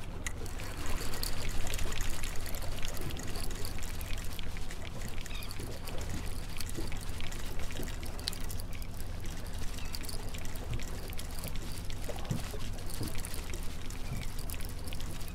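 Water splashing and trickling against a small boat's hull while a conventional trolling reel is cranked in against a hooked fish, with many light clicks and a low steady hum underneath.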